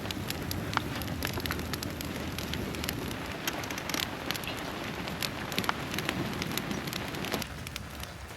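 Rain falling steadily, with many sharp drops ticking on a nearby surface. The deeper part of the sound drops away about seven seconds in, leaving a lighter patter.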